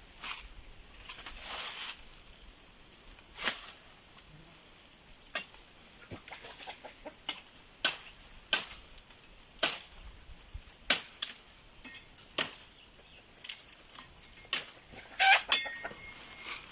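Chickens clucking and flapping their wings, amid a dozen or so sharp clicks and short rustles, with a brief squawk near the end.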